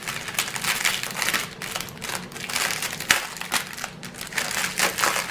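Small plastic bags of diamond painting drills being handled, the plastic crinkling and rustling with many small irregular crackles.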